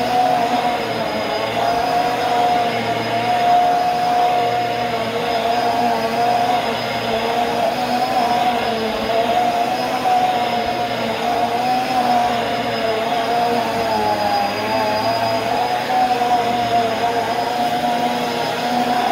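Bissell upright bagless vacuum cleaner running steadily while being pushed over carpet. Its motor tone wavers slightly in pitch, with a thin high whine above it.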